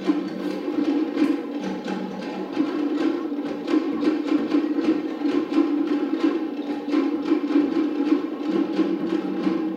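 Cook Islands drum-dance music: wooden drums knocking a fast, even beat over a sustained lower tone.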